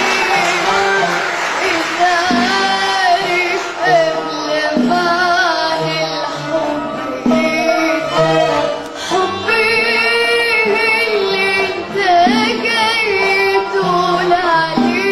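A young girl singing an Arabic song in a wavering, ornamented vocal line over a band's instrumental accompaniment.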